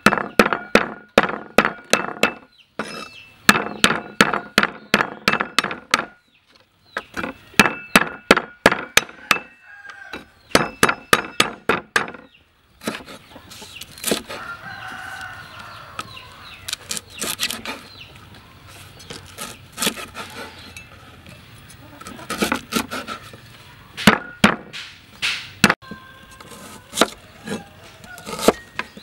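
Steel cleaver chopping lemongrass, and red onion near the end, on a wooden cutting board: runs of sharp knocks about four a second with short pauses, sparser strokes later. Chickens cluck and a rooster crows in the background.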